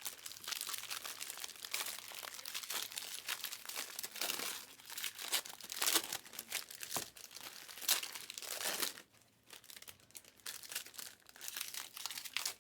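Crinkling of foil trading-card pack wrappers being handled, a dense crackle of many small rustles, with a short pause a little after the middle.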